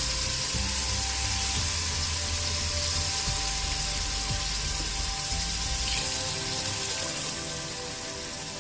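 Pot of fried masala and chickpeas hissing and sizzling after water has been poured onto it, a steady hiss that slowly dies down.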